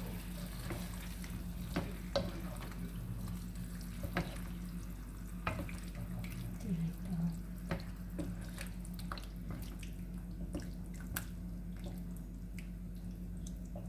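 Water running and dripping in a kitchen sink, with scattered small clicks and taps over a steady low hum.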